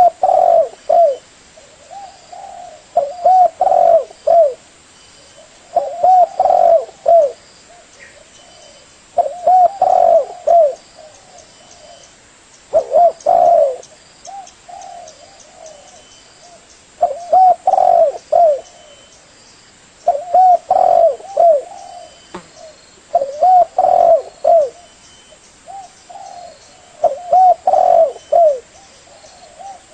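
Spotted dove (tekukur) cooing: a phrase of several short, low coos, repeated about every three to four seconds.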